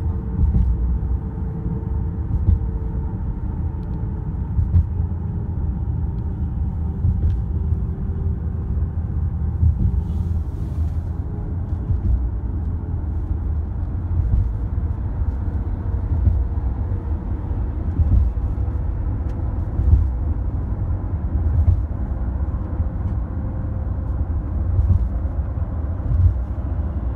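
Steady low road and engine rumble heard inside the cabin of a moving car, with a faint even hum above it.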